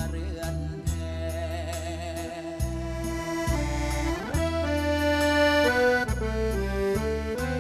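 Live band music: a reedy, accordion-like lead melody in held notes over a steady bass line, with a rising slide about four seconds in.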